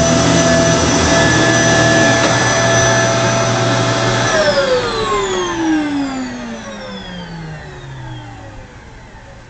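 2006 Kenmore Progressive Intelliclean vacuum cleaner running steadily with a high motor whine, then switched off about four seconds in, its motor winding down in a long falling whine that fades away.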